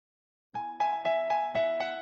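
Background music starting about half a second in: a steady run of pitched notes, about four a second.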